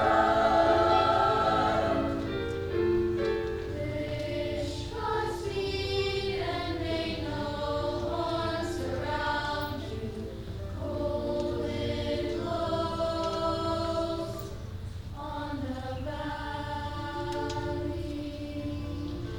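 Middle-school choir singing a traditional Czech folk song in several parts: sustained notes in phrases of about five seconds with short breaks between, loudest at the start.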